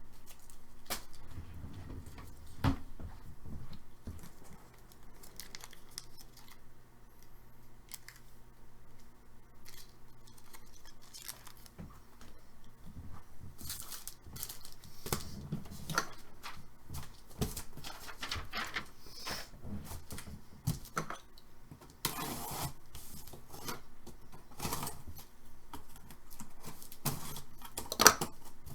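Hockey card boxes and packs being opened by hand: wrappers and cardboard tearing, crinkling and rustling, with scattered knocks of the boxes being handled and a sharp knock near the end.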